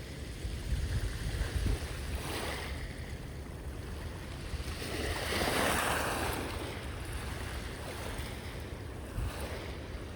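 Sea waves washing onto the shore, with one wave swelling up and receding about halfway through and a smaller wash a couple of seconds in. Wind rumbles on the microphone underneath.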